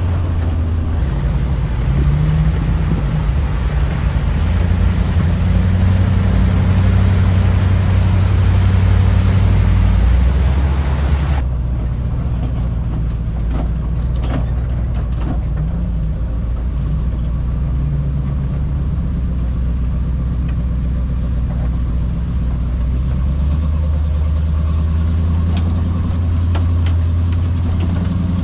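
Off-road wrecker truck's engine running at low speed as it tows a rock-crawler buggy on its boom along a dirt trail, its pitch drifting up and down. A hiss over the engine for the first ten seconds or so stops suddenly, and a few sharp knocks follow.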